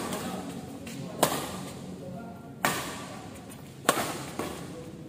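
Badminton rackets striking a shuttlecock in a rally: three sharp smacks about 1.3 seconds apart, each echoing briefly in a large hall.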